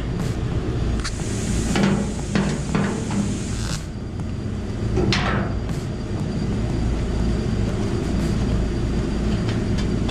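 MIG welder plug-welding a steel floor pan: short bursts of welding crackle, the longest from about one to nearly four seconds in, with a few light metal knocks and a steady low rumble underneath.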